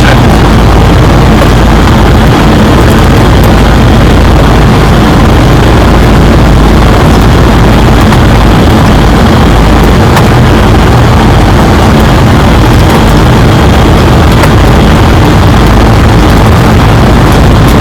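Airliner cockpit noise: a loud, steady rush of air with a low engine hum beneath it.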